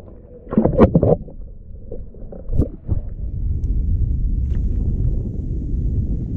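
Water sloshing and gurgling as a small bass is let go from a hand held underwater, heard close on a submerged camera. About three seconds in, a steady low rumble takes over.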